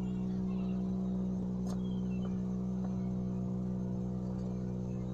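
A steady low hum with many even overtones, constant in pitch, with a faint click about a second and a half in.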